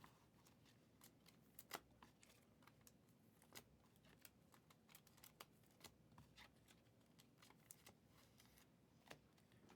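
Faint, irregular clicks and snaps of chrome trading cards being handled and flicked through one by one, a few louder snaps among them.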